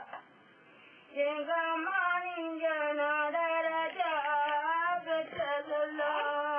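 A woman singing a Tamil lullaby to Mariamman unaccompanied, in long held notes that waver slowly in pitch. She pauses for about a second near the start before singing on.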